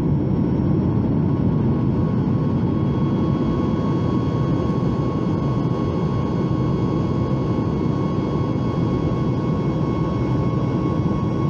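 Steady roar of a Boeing 737 MAX 8's CFM LEAP-1B jet engines heard from inside the cabin during the climb after takeoff, with a thin steady whine riding above the rumble.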